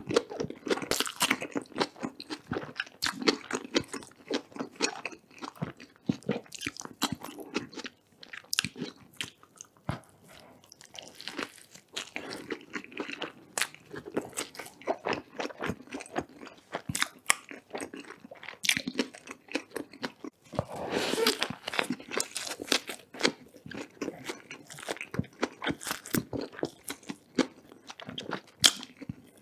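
Close-miked chewing and crunching of crispy fried chicken and burger, a steady run of wet chews and sharp crackles, with a dense burst of crunching about two-thirds of the way through.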